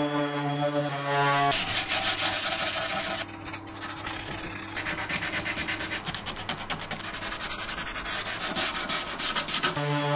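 A corded random orbital sander runs with a steady motor hum for about the first second and a half. Then 180-grit sandpaper is rubbed by hand over wood in rapid strokes, loudest at first and again near the end. Just before the end the orbital sander is running again.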